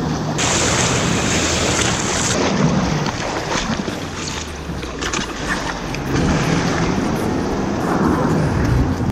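Jet ski engine idling with a low steady hum, under water splashing and wind on the microphone; a brighter hiss of spray or surf rises for about two seconds near the start.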